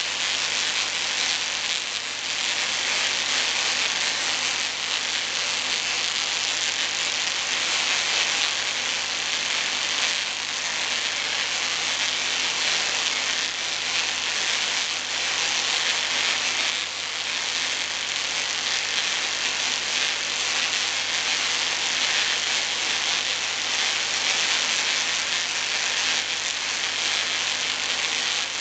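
Spark-gap Tesla coil running with a steady, hissing crackle from its static copper-pipe spark gap and the streamers off the toroid, over a steady low hum from the 8 kV neon sign transformer supply.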